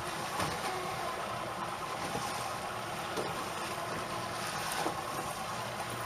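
Outboard motor idling steadily on a boat at sea, mixed with a constant wash of wind and water.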